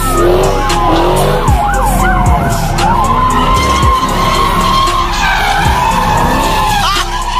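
Car tyres squealing as a car spins burnout donuts, the squeal wavering up and down in pitch over a steady low engine rumble.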